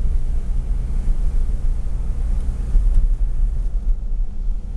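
Engine and road noise of a vehicle driving along, heard from inside the cab: a steady low rumble.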